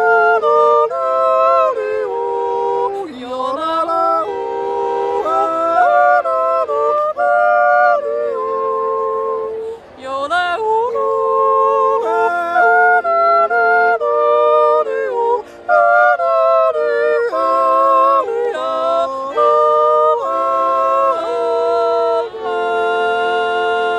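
Two-voice Swiss yodel: a woman and a man yodel a wordless refrain in harmony, their voices leaping up and down in pitch, over held chords from a Schwyzerörgeli (Swiss button accordion). The singing comes in phrases with short breaks between them.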